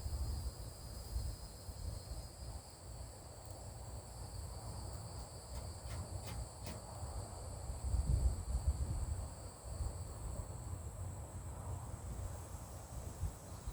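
Steady chorus of crickets or similar insects, a constant high chirring in two pitch bands, the lower one fading out near the end, over a low rumble, with a few faint clicks about halfway through.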